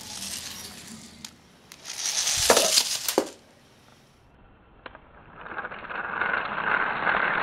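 Plastic LEGO Technic pullback-motor bike rattling and clicking as it is wound back and sent running over carpet. The loudest clattering comes about two to three seconds in, then a short lull, then a steady rushing rattle with clicks from about five seconds on.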